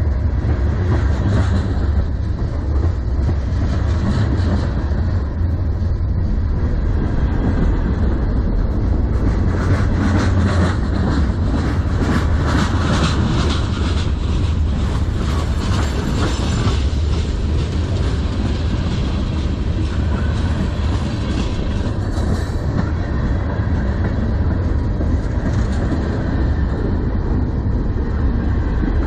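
Freight cars of a CN manifest train rolling past close by: a steady loud rumble of steel wheels on rail with clickety-clack over the rail joints. The clacking and rattling thicken around the middle.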